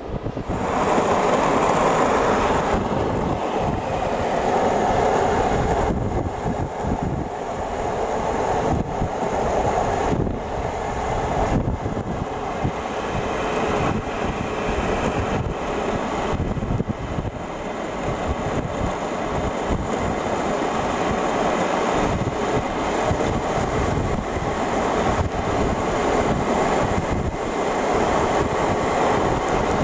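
Continuous rumble of longboard wheels rolling fast over asphalt, a rough steady noise with occasional clacks from the road surface, mixed with wind noise.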